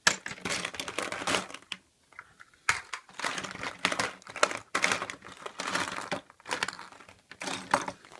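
Foil wrapper of a chocolate surprise egg being unwrapped and crumpled by hand: irregular crinkling rustles, with some tearing.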